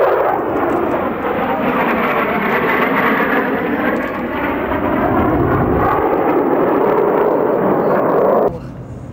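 SR-71 Blackbird's twin J58 jet engines during a low, high-speed pass: a loud, steady jet noise with tones sweeping slowly up and down as the aircraft goes by. The noise cuts off abruptly near the end.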